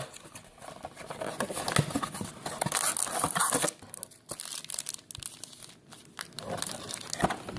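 Plastic wrapping of a trading-card blaster box crinkling and tearing as it is opened by hand and the wrapped card packs are handled, in irregular bursts that are loudest a few seconds in.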